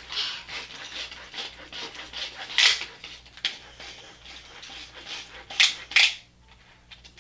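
Kinsmart 1:36 Ford GT pull-back diecast cars being drawn back along the paper track to wind their spring motors: a series of short rasping scrapes of wheels and clockwork, with a few sharper strokes and a quieter pause near the end.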